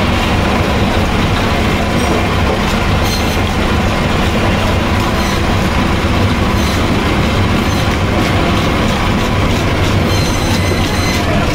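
Handheld electric fish scaler running steadily as it strips the scales off a rohu, a continuous mechanical rumble with faint scattered clicks of scales.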